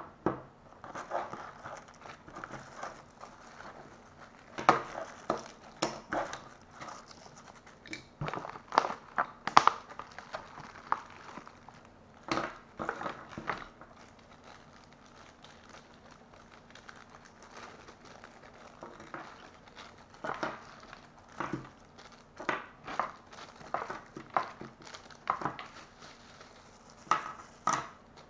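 Small plastic accessory bags and a clear plastic packaging tray crinkling and rustling as they are handled, with light clicks and knocks of items set down on a wooden table. The handling comes in irregular bursts, with a quieter spell midway.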